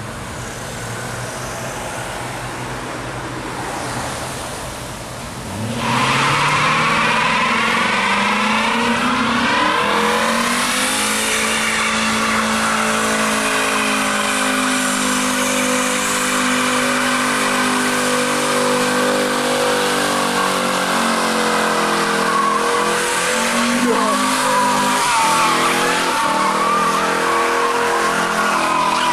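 Infiniti Q45t's 4.5-litre V8 revving up, then about six seconds in a sustained, loud burnout begins: the engine is held at high revs while the rear tyres spin and squeal. The pitch wavers up and down.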